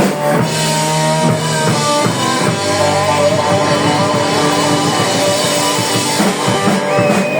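Rock band playing live: drum kit and guitar.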